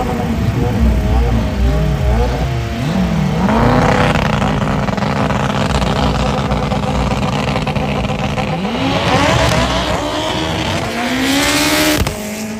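A racing car's engine revving up and down, then held at high revs with a rush of noise for several seconds, then climbing steadily in pitch as the car accelerates; the sound drops off sharply near the end.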